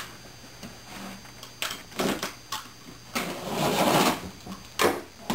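Packing tape on a cardboard box being cut open: a few short scrapes and knocks, then one long rasping slice a little over three seconds in, and a sharp knock on the cardboard near the end.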